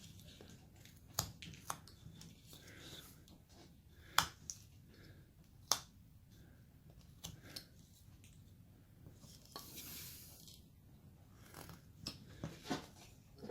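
Carving knife cutting into basswood by hand: sharp clicks and snaps as chips come off, spaced a second or more apart, with one longer shaving stroke about ten seconds in.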